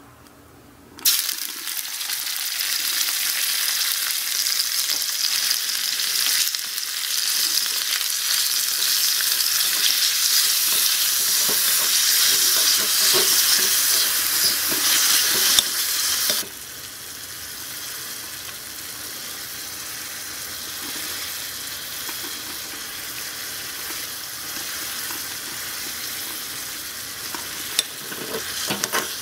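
Small pieces of food dropped into a hot miniature wok and sizzling, starting sharply about a second in. The sizzle drops suddenly to a lower, steady level about halfway through, and a small wooden spatula stirs and taps against the wok near the end.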